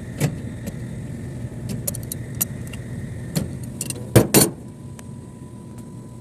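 Metal clinks and knocks of hand tools working a flare nut on an air conditioner's copper refrigerant line, with two loud clanks a little past four seconds in, over a steady low hum.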